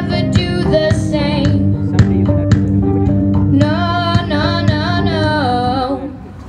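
A girl sings the closing bars of a pop ballad live into a microphone, holding long wavering notes over an instrumental backing. The music fades out about six seconds in.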